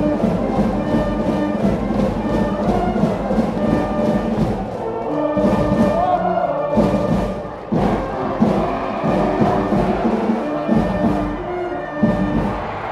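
School brass band cheering section playing a baseball cheer song: trumpets and other brass carrying the tune over a steady drumbeat, with a short break partway through.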